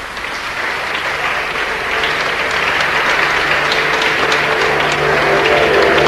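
A crowd applauding, swelling over the first couple of seconds. Steady low tones come in underneath about a second and a half in and grow stronger near the end.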